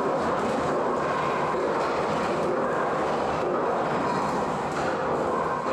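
Loud, steady machinery noise, a dense running hum that holds level and begins to fade right at the end.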